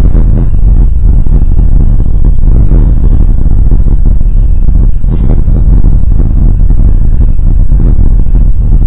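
Loud, steady rumble of wind buffeting an outdoor microphone, near full level with no clear rhythm or pitch.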